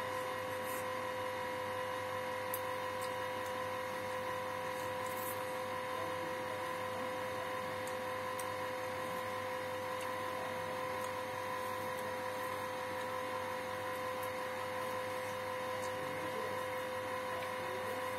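A steady hum with two constant tones, one an octave above the other, over a faint even hiss, with a few faint ticks now and then.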